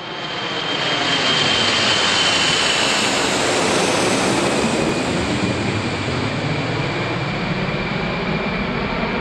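Boeing 727 passing low overhead, its three Pratt & Whitney JT8D turbofans making a loud, steady jet noise. A high whine over the noise drops in pitch about halfway through as the plane goes by.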